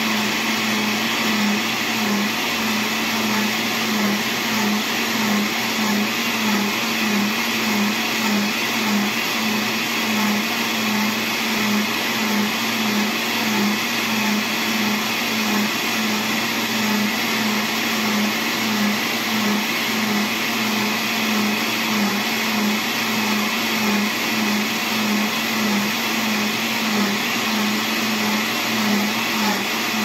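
Multilaser Multi Home Multiturbo 650 W blender running steadily, its blades churning a thick mix of fruit, milk and oats in the plastic jar. A slight regular throb runs through the motor's hum.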